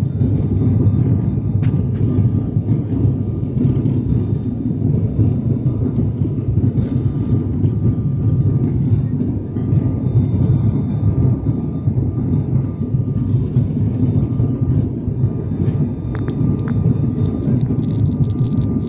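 Steady cabin drone of an ATR 72-600's twin turboprop engines and propellers during the descent to land, a deep rumble with a faint steady high whine over it.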